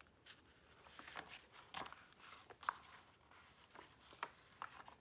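Paperback picture book being opened and its pages turned by hand: faint paper rustling and light taps, with one sharper click a little under three seconds in.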